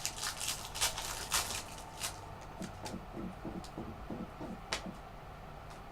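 Football trading cards and their packaging being handled: a quick run of crisp clicks and rustles in the first two seconds, then fainter scattered ticks.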